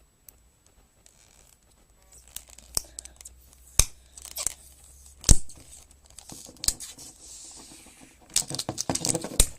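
Plastic shrink wrap being torn and peeled off a small product box. Crinkling and crackling start about two seconds in, with a few loud sharp snaps and a dense run of crackling near the end.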